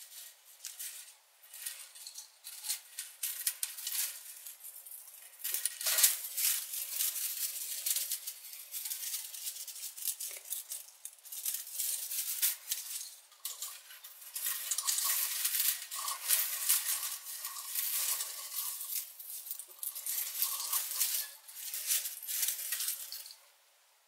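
Thin strip of clear plastic bottle crinkling and crackling in the hands as it is pulled and gathered into loose coils. It gets louder about six seconds in.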